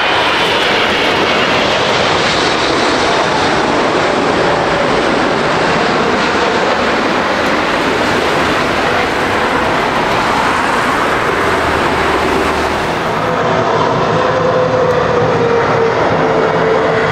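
Jet airliner engines on landing approach: an Airbus A380-800's steady, loud jet noise, which about 13 seconds in gives way to a Boeing 777-300ER's twin GE90 engines with a steady whine over the rumble.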